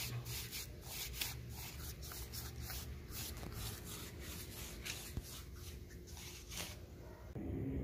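Paintbrush scrubbing sealer onto a rough tree-bark slab: short scratchy brush strokes a few times a second, stopping near the end.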